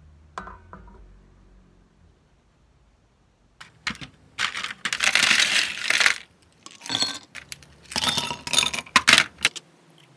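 Ice cubes scooped from a plastic ice bin and dropped clinking and clattering into a glass, in several bursts over about six seconds. A pan lid is set down with a short clink about half a second in.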